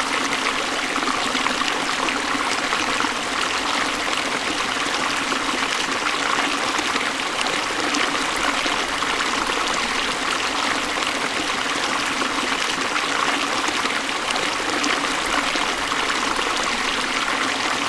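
Water of a small stream running over rocks, a steady splashing and trickling that does not change.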